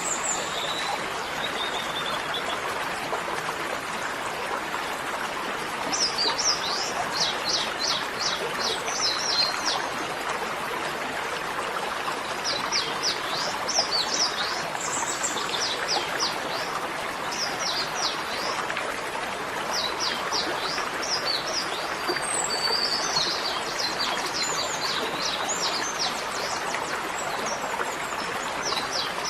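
Steady rush like running water, with a songbird singing short runs of quick, high chirps every few seconds.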